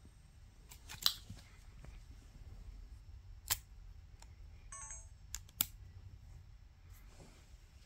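Sony RX100 VII compact camera being handled: a few sharp clicks as its controls are worked, and a short electronic beep about five seconds in.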